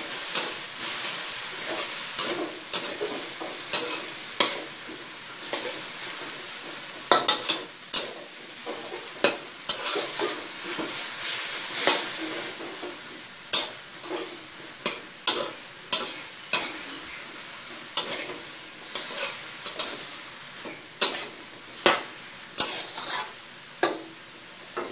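Metal spatula scraping and knocking against a wok as Chinese kale and minced pork are stir-fried, over a steady sizzle. The knocks come irregularly, about one or two a second, and the sizzle eases somewhat toward the end.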